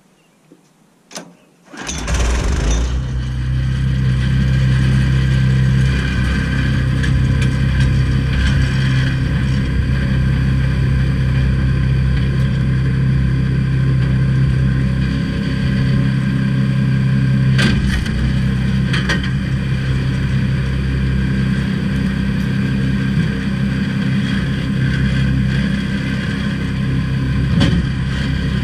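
Small gasoline engine of a SuperSplit log splitter starting about two seconds in, then running steadily. A few sharp knocks come through over the engine in the second half.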